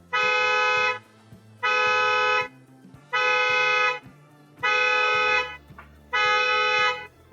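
Car alarm set off by an attempted break-in through the sunroof, sounding the car's horn in steady blasts under a second long, about one every second and a half, five times.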